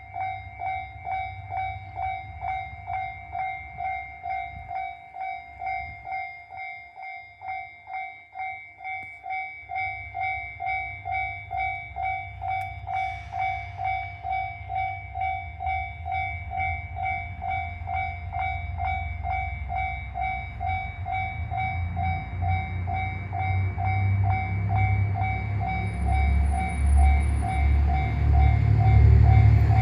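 Japanese level-crossing warning bell ringing in an even electronic ding-ding rhythm, about three rings every two seconds. Under it the low rumble of a two-car 1200-series diesel railcar grows steadily louder as it pulls slowly away from the station towards the crossing.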